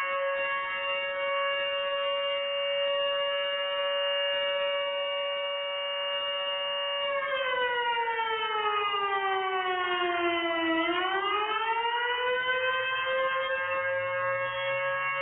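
Fire department's rooftop alert siren sounding a steady high tone. About seven seconds in, the pitch slides down for a few seconds, then winds back up to the steady tone.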